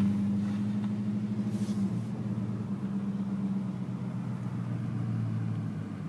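Car engine running at low speed, a steady low hum that shifts slightly in pitch about two seconds in.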